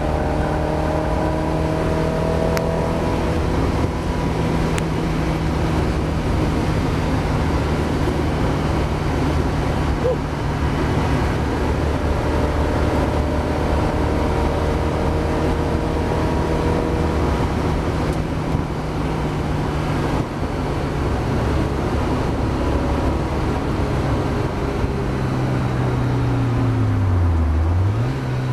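Mazda MX-5 race car's engine heard from inside the car, held at steady high revs with road and wind noise. Near the end the revs drop sharply and then climb straight back up, as for a lift or gear change into a corner.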